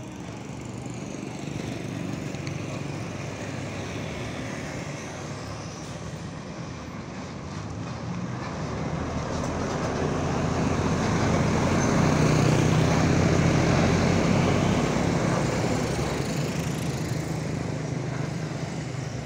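Intercity coach's diesel engine running as the bus turns in close past, growing louder to a peak about twelve to fourteen seconds in, then fading as it pulls away.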